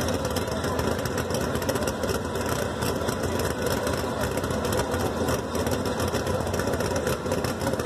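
Lifted Chevy C10 mud truck's engine idling steadily, held at a constant speed without revving.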